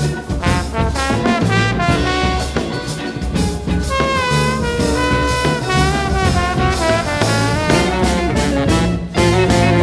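A live band plays a jazzy tune with horn lines over drums. There is a short break about nine seconds in, and then the band comes back in louder.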